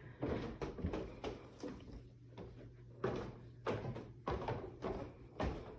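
A string of irregular soft knocks and thumps, about a dozen, over a steady low hum.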